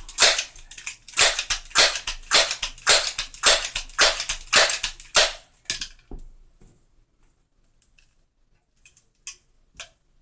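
Crosman 1322 multi-pump air pistol being pumped up: about ten quick strokes of the pump lever, roughly two a second, each a short rush of air. This charges the pistol for a 10-pump shot. After that come a few light clicks as the pistol is handled.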